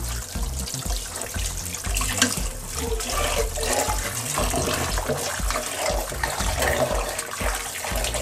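Tap water running into a metal bowl of stinging catfish in a sink, with a hand swishing and rubbing the fish in the water as they are rinsed.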